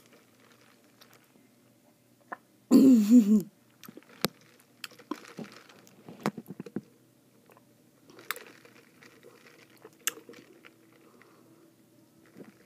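Iced coffee being sipped through a straw: faint sucking and slurping with scattered small clicks. About three seconds in there is a short, loud, wavering vocal hum of the kind a person makes while tasting.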